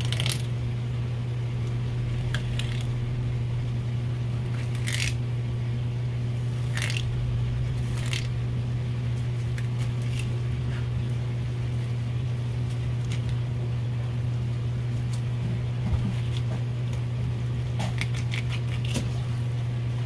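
Filleting knife scraping along the bones of a large stone flounder as the fillet is cut free: a few short, sharp scrapes spaced a second or more apart, with several in quick succession near the end. A steady low hum sounds underneath throughout.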